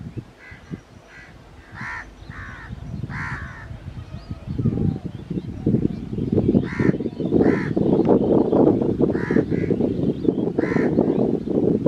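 Crows cawing repeatedly in short calls, over the low rumble of an approaching electric locomotive and loaded freight train that sets in about four and a half seconds in and grows louder.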